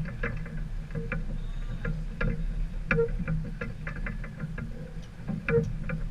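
Aboard an Islander 36 sailboat under way: a steady low rumble with irregular short knocks and ticks, several a second, a few ringing briefly.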